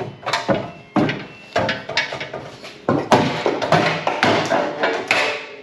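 Irregular metal bangs and clanks, about a dozen sharp knocks, some ringing briefly, from work on the car's steel body and rear-end parts.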